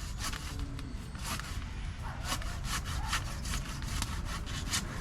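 A hand saw cutting through a plum tree branch with quick back-and-forth strokes, a few strokes a second.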